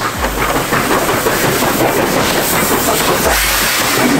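Soviet L-class steam locomotive running past close by, with a steady rhythmic clatter of its exhaust and wheels on the rails. Two short, deep low thuds come just after the start and again about three seconds in.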